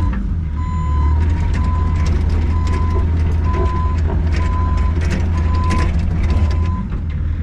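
Bobcat E85 mini excavator's diesel engine running steadily while its travel alarm beeps about once a second, a sign the tracks are moving, with scattered clanks and knocks from the machine.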